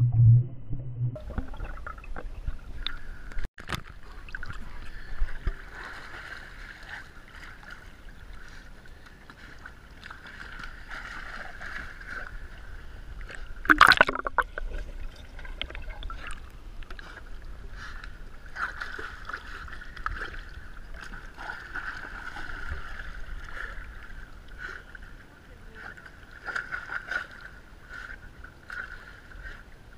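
Pool water sloshing and splashing as a yellow Labrador retriever swims and paddles, picked up by a camera at and below the water surface. There is one loud splash about halfway through.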